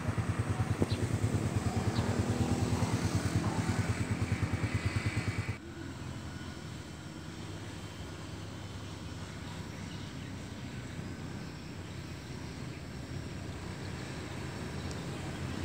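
A small engine running with a steady, even pulsing beat, which cuts off abruptly about five and a half seconds in, leaving a quieter, steady outdoor background hiss.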